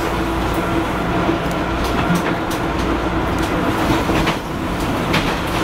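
Hawker Siddeley H5 subway car running between stations, heard from onboard: a steady rumble with a faint hum and scattered short clicks from the wheels on the track.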